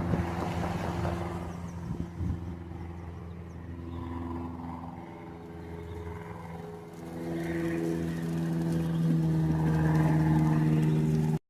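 Low-flying plane's engine droning overhead, a steady hum that grows louder over the last few seconds.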